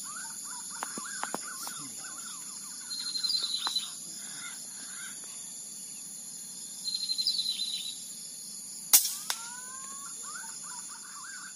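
Songbirds calling: a short high trill repeats about every four seconds over lower gliding whistles, with a steady high insect drone. About nine seconds in, a single sharp crack from the air rifle's shot stands out as the loudest sound.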